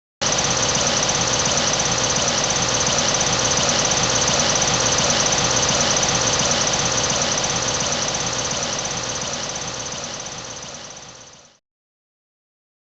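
Engine sound effect for a combine harvester, running steadily with a rattly, knocking idle; it starts abruptly and fades away over the last few seconds.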